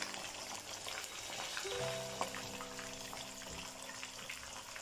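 Whole tilapia sizzling in shallow hot oil in a wok, a steady crackling fry. Background music with held notes comes in about two seconds in.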